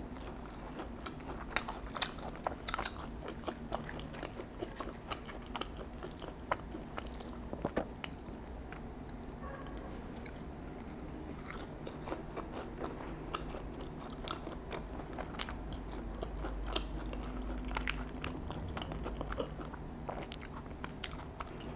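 Crunching bites into fried cheese balls with a crispy shell, then chewing, with sharp crackles scattered throughout.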